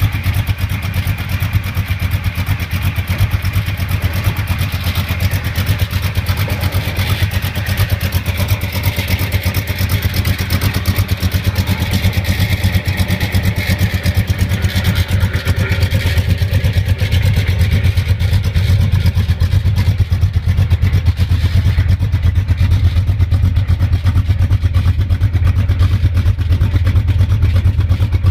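1932 Ford three-window coupe hot rod's engine and exhaust running, a steady low rumble with rapid even pulses that grows a little louder in the second half.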